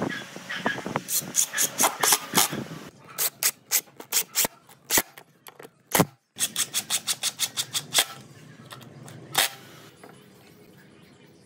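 Cordless impact driver driving wood screws into a chair seat, in three runs of rapid clacking impacts and one last short burst.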